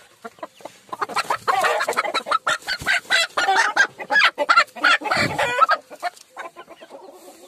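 A Kadaknath hen squawking in alarm as she is grabbed by hand, in a loud, agitated run of calls that starts about a second in and dies down near six seconds.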